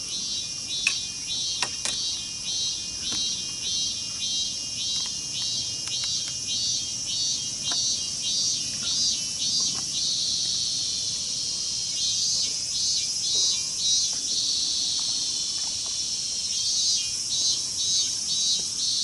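Insects shrilling: a steady high-pitched drone with a pulsing call over it, about two pulses a second, that breaks off around ten seconds in and returns briefly twice near the end.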